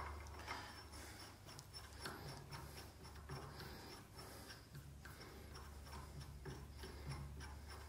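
Faint light ticks and rubbing as a long 5/8 UNF steel centre bolt is spun by hand into the threaded boss of a lathe compound slide, over a steady low hum.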